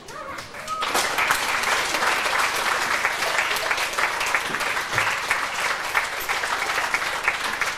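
Audience clapping: applause swells within about the first second and then carries on steadily.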